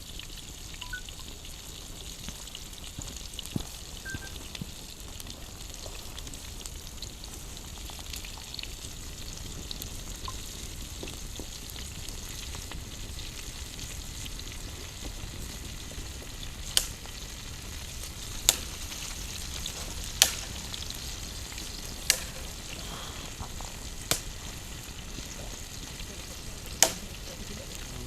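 Food frying and sizzling over a campfire, a steady hiss. In the second half come sharp loud pops about every two seconds.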